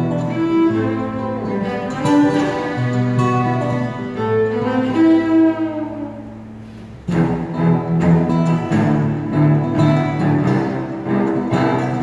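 Cello and classical guitar playing a duet. The music fades on a held note around six seconds in, then both instruments come back in strongly about seven seconds in.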